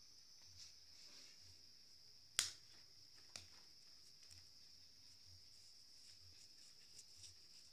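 Maize cobs roasting on a wire grill over charcoal, giving a sharp pop about two and a half seconds in, a smaller one a second later and a few faint ticks. Under it runs a faint, steady high chirring of insects.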